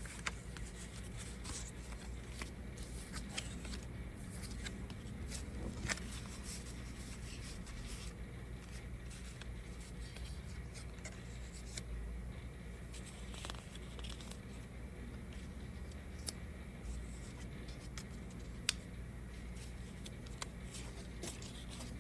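Paper card cut-outs being flipped over and slid across a table: soft papery rustles and scattered light taps over a low steady room hum, with one sharper tap toward the end.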